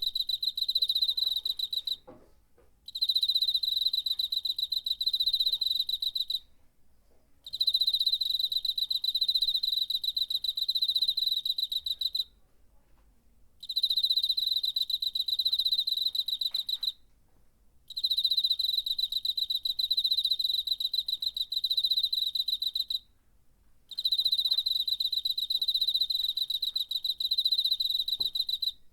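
A cricket singing, its wings rubbing out a high, pulsed trill. The trill runs for several seconds at a time, broken by short pauses of about a second, six bouts in all.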